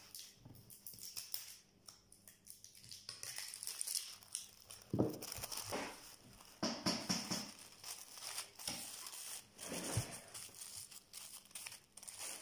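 Paper rustling and crinkling in short irregular bursts as a sheet of wrapping paper is handled and folded, with a couple of soft knocks on the worktop.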